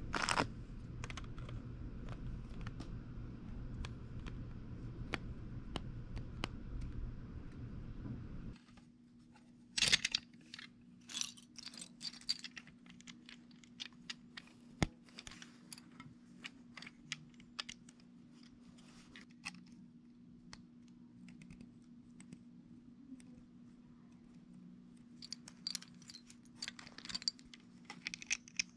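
Plastic LEGO bricks clicking and snapping together as they are pressed on and handled: a run of short, sharp clicks, thickest about ten to thirteen seconds in and again near the end, over a steady low background hum.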